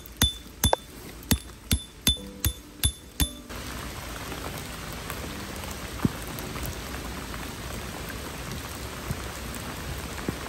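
A metal tent stake driven in with a peg hammer: about eight sharp, ringing strikes, two to three a second. About three and a half seconds in they give way to steady heavy rain falling on a wooden deck and trees.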